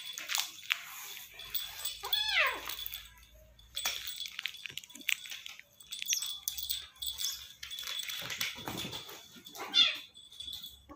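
Baby otter and kitten play-fighting on a plastic play mat: scuffling and rustling, with a squealing animal cry that falls steeply in pitch about two seconds in and another short cry near the end.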